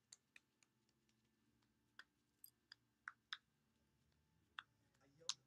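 Near silence broken by faint, irregular clicks and taps of fingertips patting primer into the face, about ten in five seconds, the loudest near the end.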